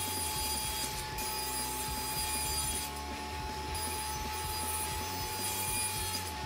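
Table saw running with a steady whine as its blade rips through a sheet of plywood.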